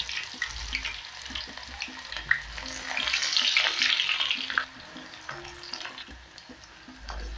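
Sliced red onion rings deep-frying in very hot oil: a steady crackling sizzle that swells about three seconds in, then settles to a softer sizzle.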